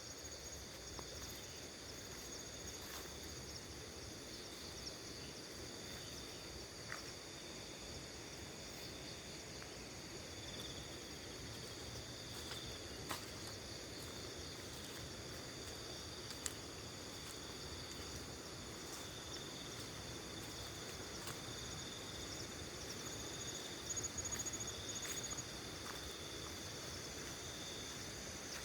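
Steady chorus of crickets and other insects: several continuous high trills at different pitches layered together. A louder, rapidly pulsing trill joins for a couple of seconds near the end, and a few faint clicks sound along the way.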